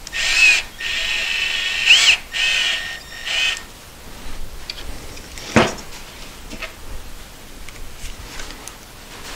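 Cordless driver running in four short bursts, the motor whine rising and falling as it drives pocket-hole screws into a poplar face-frame joint. A single sharp knock follows about five and a half seconds in, then faint handling clicks.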